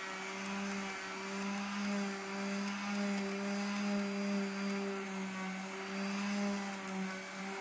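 Electric orbital finishing sander running steadily, its pad sanding the old finish off a wooden cabinet door: an even motor hum with a hiss of abrasion over it.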